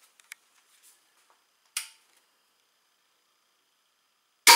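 A target crossbow firing a 500-grain bolt near the end: a sudden loud crack of the string's release, running straight into the smack of the bolt hitting the target, fading within half a second. A single sharp click comes about two seconds earlier.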